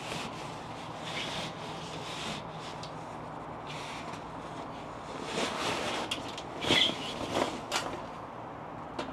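Stainless steel Solo Stove fire pit being handled and lifted out of its fabric carry bag: rustling of the bag and a few light metal knocks and scrapes, the knocks coming about seven seconds in.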